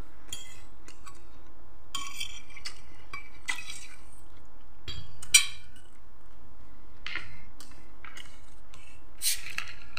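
A metal fork clinking and scraping against a bowl as spaghetti is twirled, with eating sounds in between. One sharp clink about five seconds in is the loudest.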